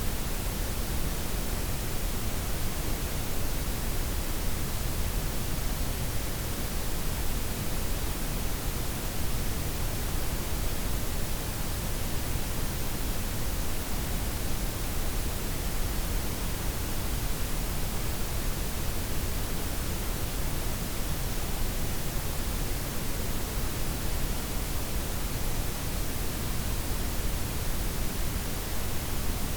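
Steady synthetic noise blend of softened white, pink and brown noise, an even hiss with a deep low rumble and no changes or events.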